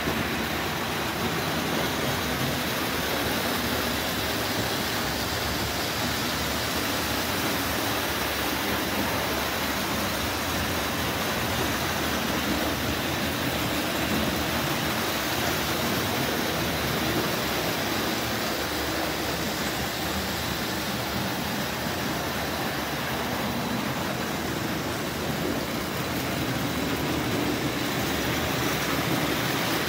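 Marx O27 toy electric train running on its tinplate three-rail track, a steady, even running noise with no pauses.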